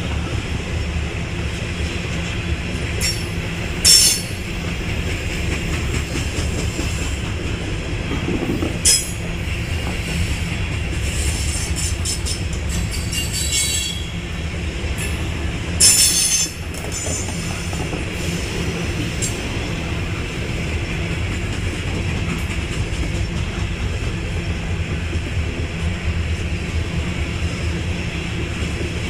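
A CSX freight train of open hopper cars rolling past with a steady low rumble of wheels on rail. Several short, high wheel squeals cut through, the loudest about four seconds in and again about sixteen seconds in, with a run of fainter squealing in between.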